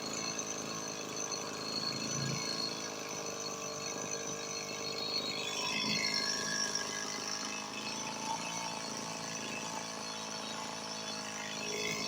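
Stihl MS 180 chainsaw's two-stroke engine idling steadily, being test-run after repair and reassembly.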